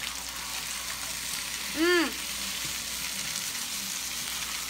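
A pan of crispy roast pork and quail eggs frying in a soy-sugar sauce, sizzling steadily. About two seconds in, a short high voice exclamation rises and falls in pitch.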